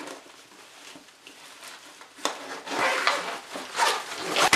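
Zipper being pulled open along the side of a soft-sided Ibiyaya 4-in-1 pet carrier, with the carrier's fabric rustling as it is handled. It is faint at first, and the rasping zipping starts about two seconds in.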